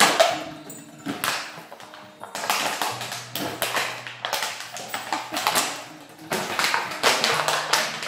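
Empty plastic bottle knocking and crackling on a ceramic tile floor as a kelpie bites, noses and pushes it around, in an irregular string of sharp clatters.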